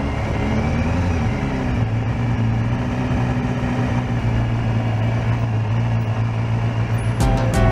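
Honda CBR250R (MC19) motorcycle's 250 cc inline-four running steadily over a hiss of road noise, its pitch stepping up slightly about a second in and then holding. Music comes in near the end.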